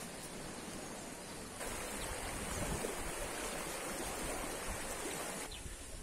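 Steady outdoor rushing noise with no pitch, louder from about a second and a half in until shortly before the end, with a few faint low thumps.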